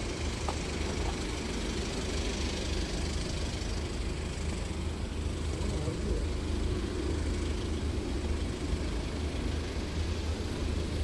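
Steady low rumble of a running vehicle engine with an even noise over it, holding constant.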